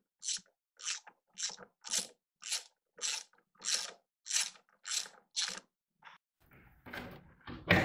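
Hand socket ratchet backing out fasteners under the hood, with a burst of pawl clicks on each back-swing about twice a second. The strokes stop about six seconds in, and handling noise follows, with a knock near the end.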